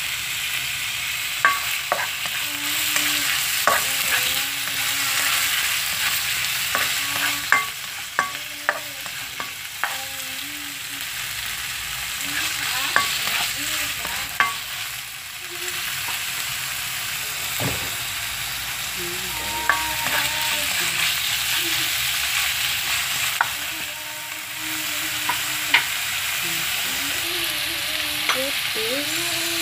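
Diced chicken frying in oil with chopped onion and garlic in a nonstick frying pan: a steady sizzle as the raw meat cooks. A spatula stirs it, with many sharp clicks and short scrapes against the pan.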